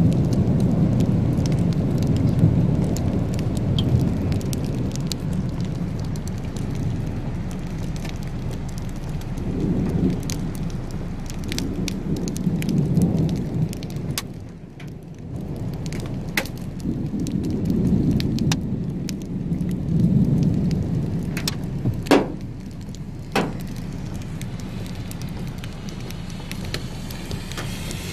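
Rain falling, heard from inside a car, with scattered drops ticking on the car body and glass. Low rumbles of thunder swell and fade several times, and two sharper clicks come near the end.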